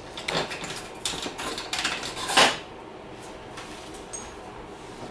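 Metal clinks and scrapes of a steel motorcycle rear axle being worked back through the swingarm, chain adjusters and wheel hub, with a cluster of clanks in the first two and a half seconds and the loudest clank about two and a half seconds in; after that it goes quiet.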